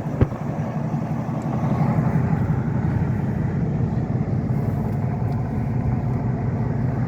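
Steady engine and road noise of a moving vehicle heard from inside the cabin, with a single sharp knock about a quarter second in.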